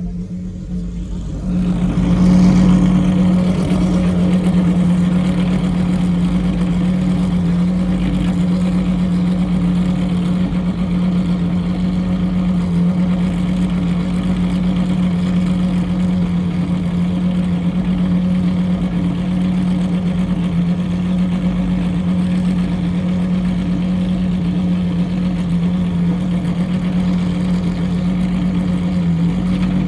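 Pagani Zonda R's Mercedes-AMG V12 engine running at a steady, unchanging pitch. It gets louder about a second and a half in, then holds level with no revving.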